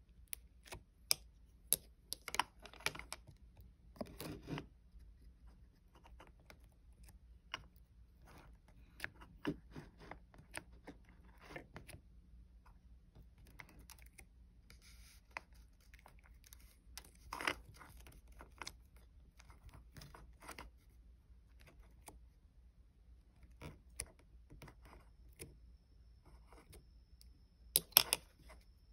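Clear glitter slime being pressed and rolled with a pink pen, giving irregular sticky clicks and small crackling pops, with a louder burst of pops near the end.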